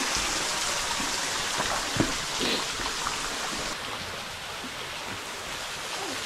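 A thin waterfall spilling over a rock overhang, its water falling in strings of drops and splashing steadily onto the wet rock below. One sharp tap about two seconds in.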